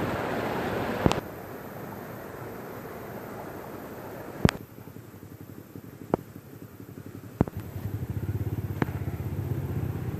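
Strong wind buffeting the microphone, cut off abruptly about a second in. A quieter rumble follows, broken by several sharp clicks, and a low pulsing hum comes in near the end.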